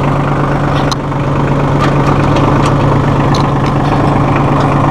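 1.5 L Shibaura diesel engine of a Massey Ferguson 1740E compact tractor running steadily, heard from the driver's seat, with a few faint clicks about a second apart.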